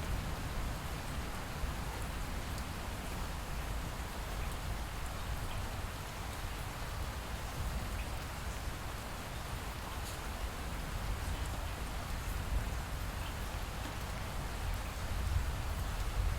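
Light rain falling steadily, with faint scattered drop ticks over a low rumble that swells near the end.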